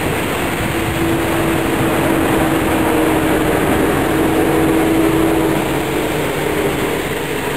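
Busy city street traffic with a red double-decker bus's engine running close by. A steady engine drone holds over the traffic noise from about a second in and stops a little over five seconds in.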